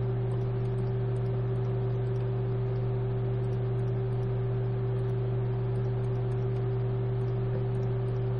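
Steady electrical hum with a faint hiss: a strong low tone with a fainter, higher tone above it, unchanging throughout.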